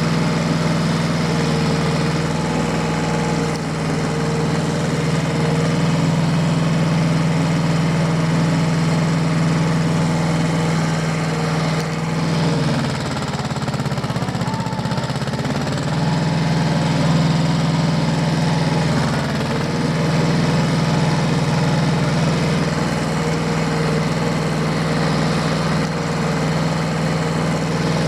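Diesel tractor engine running steadily at an even speed. About halfway through, its pitch sags and wavers for a couple of seconds before settling back to the same speed.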